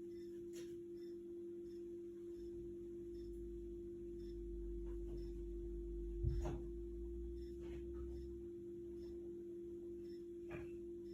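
Indesit washing machine running early in its quick wash programme: a steady hum, with a low rumble that swells in the middle and a single thump about six seconds in, plus a few faint clicks.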